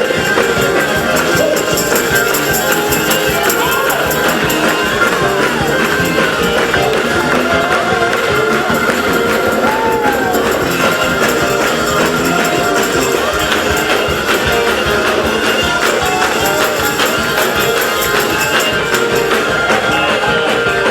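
Lively music with a steady beat.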